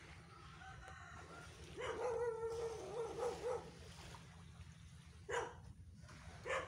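A dog whining in a long wavering call, then a single short bark near the end, over a low steady hum.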